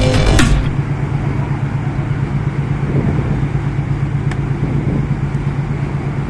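Background music cuts off in the first second, leaving a steady, loud, low engine drone.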